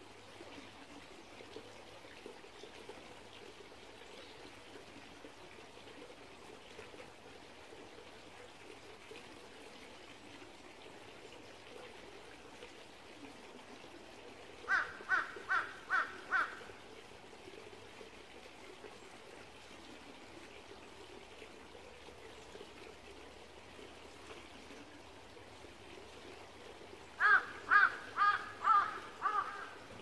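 Small valley stream trickling steadily. A bird calls in two runs of about five quick calls each, one midway through and a louder one near the end.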